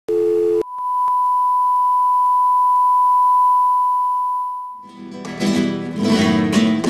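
A short buzzy beep, then a steady high-pitched test tone that fades out. Acoustic guitar music begins about five seconds in.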